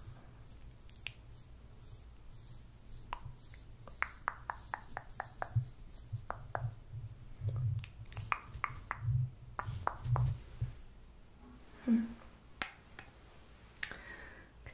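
Light clicks and taps from handling a makeup brush as eyeshadow is brushed on, including a quick run of about six taps a second around four seconds in, then scattered clicks.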